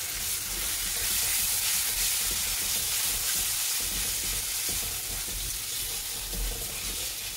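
Onion-tomato masala sizzling steadily in hot oil in a steel wok while ginger-garlic paste is stirred in, with the spatula scraping and pushing the mixture around the pan.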